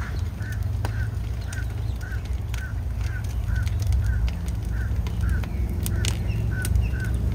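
A car alarm sounding the horn in short, even honks about twice a second among burning cars. Sharp pops and cracks from the fire come through over a steady low rumble of flames and wind.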